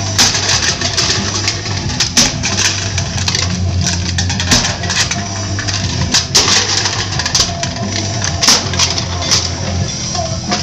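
Empty aluminum cans stomped on and kicked across a concrete driveway, a continuous run of irregular sharp clanks, crunches and clattering. Rock music plays underneath.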